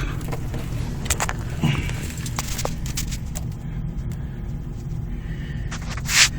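Steady low rumble with scattered clicks and knocks, and a short loud scrape near the end, typical of a drain snake cable working through an old drain line.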